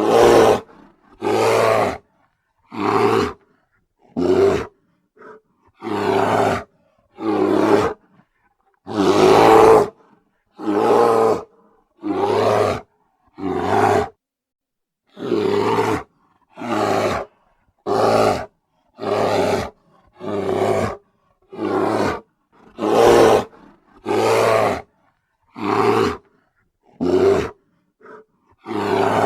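Bear roaring over and over in short, rough roars of about a second each, one roughly every second and a half with silence between, one of them longer and louder.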